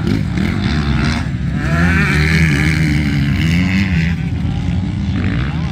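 Motocross bike engines revving hard on a dirt track, the engine note rising and falling repeatedly with throttle and gear changes.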